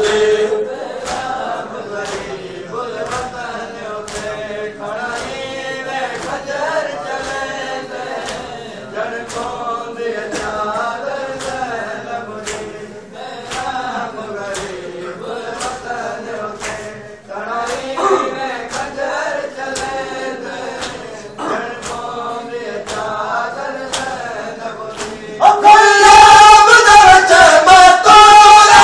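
Men chanting a noha (mourning lament) in unison, kept in time by a steady beat of matam chest-beating slaps a little faster than once a second. About 25 seconds in the chanting swells much louder as the whole crowd joins in.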